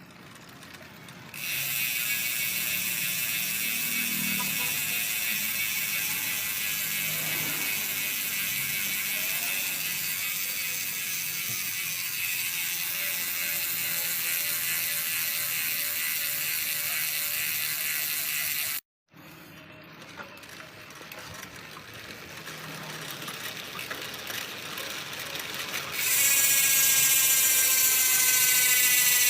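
Speedone Soldier 6-pawl rear hub buzzing loudly as its pawls ratchet while the bike coasts. The buzz cuts off suddenly, then builds again.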